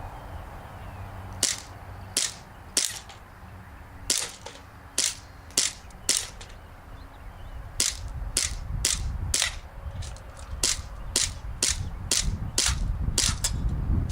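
Green gas blowback airsoft pistol (Sig Sauer P226 replica) firing about twenty sharp shots, first spaced out, then in quicker runs of several shots about half a second apart. Low wind rumble on the microphone underneath.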